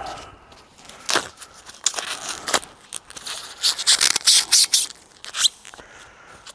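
Packaging being unwrapped by hand: irregular crackling, rustling and tearing, busiest about four to five seconds in.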